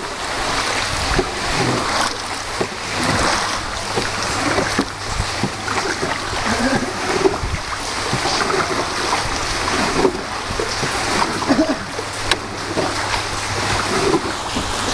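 Water splashing and sloshing around a small boat on the river, irregular and continuous, over a faint steady low hum, with some voices faintly in the background.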